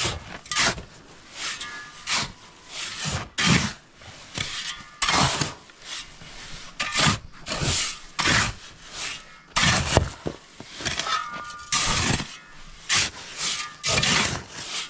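Two steel shovels scooping and turning a dry sand-and-cement mix, blades scraping through the grit and over the ground in quick, uneven strokes, about two a second.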